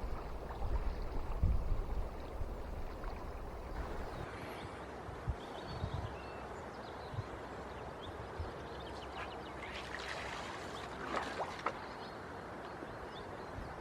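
River water flowing steadily, an even rushing sound, with low rumbles of wind on the microphone.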